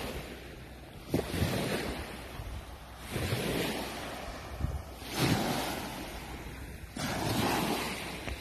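Small waves washing in and out on a gravel beach, with wind buffeting the microphone; the wash swells and falls back several times.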